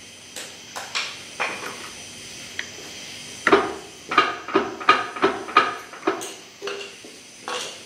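Manual locking hub on a Dana 60 front axle being worked by hand: a few scattered clicks, then a quick run of about eight sharp metallic clicks, roughly three a second, as the hub is checked going into lock and back to free-spinning.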